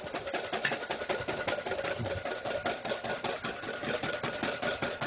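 Wire whisk beating egg whites in a stainless steel mixing bowl, a rapid, even run of metal clicks and scrapes. The whites are being whipped toward soft peaks and are turning frothy.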